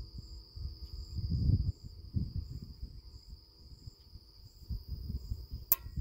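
Insects buzzing steadily with faint chirps about twice a second, over a low rumble of wind on the microphone. Near the end comes a single sharp click: the pump's pressure switch snapping its contacts open at 60 PSI and cutting power from the solar panel to the pump.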